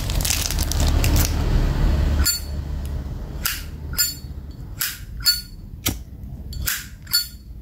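1985 gold-plated Zippo lighter handled for a couple of seconds, then its hinged lid is snapped open and shut over and over. The lid makes about eight sharp metallic clinks, each with a short ringing ping.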